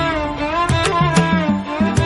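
Background music: a melody that glides and bends in pitch over repeated drum-like strikes.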